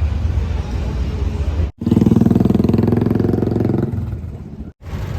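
Low street-traffic rumble, then a sudden cut to a motorcycle engine running loud and close, which fades away after about two seconds. The sound cuts off abruptly again near the end, back to traffic rumble.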